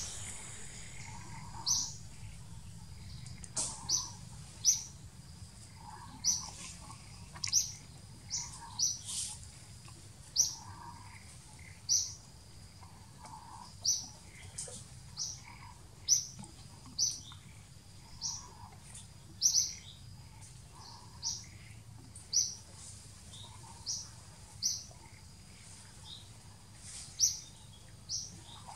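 A bird calling: short high chirps repeated at uneven intervals, roughly one a second, over a steady low rumble.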